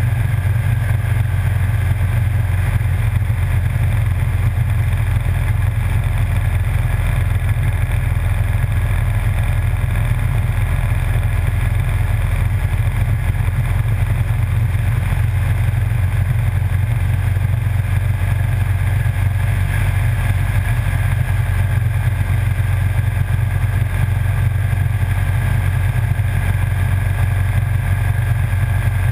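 Motorcycle engine running steadily at cruising speed: a constant low drone with road noise, holding the same pitch and level throughout.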